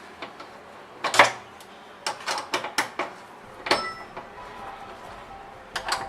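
Sharp, irregular clicks and knocks of hands handling the door lock's metal hardware, the loudest about a second in and a quick run of them around the middle.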